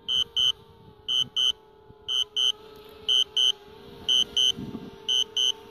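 Drone remote controller sounding its warning beeps in quick pairs, about one pair a second, over a faint steady hum. It is the alert for the drone's automatic low-battery landing.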